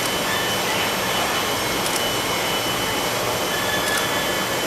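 Steady machinery noise: an even rushing of air over a low hum, with a few faint ticks and brief high tones.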